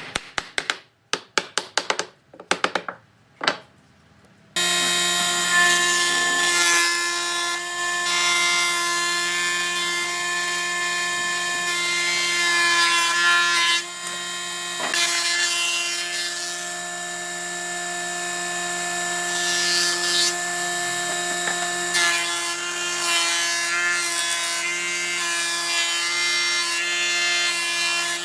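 A few scattered wooden knocks, then an electric power tool starts suddenly about four and a half seconds in and runs steadily on wood, its motor giving a constant tone.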